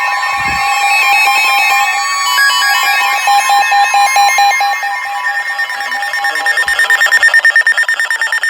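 Several weather alert radios sounding their alarms at once, a tangle of overlapping electronic beeps and steady alert tones that signal an incoming weather warning. The rapid pulsing beeps grow louder about seven seconds in.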